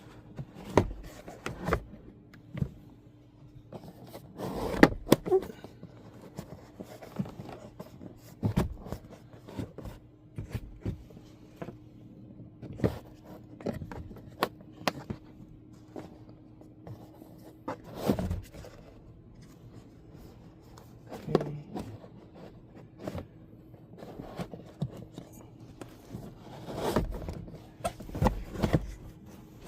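Plastic interior trim being handled and pressed back into place: scattered clicks, knocks and short scrapes, a few of them loud, over a faint steady hum.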